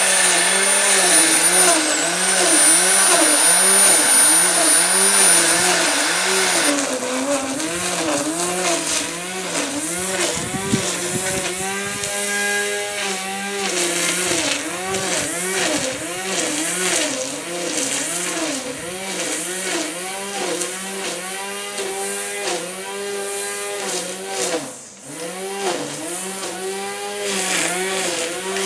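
Corded electric grass trimmer running, its motor pitch dipping and rising about once a second as the line is swung through long grass. A high steady whine with hiss sits over it for the first several seconds and cuts off suddenly. The sound drops out for a moment near the end.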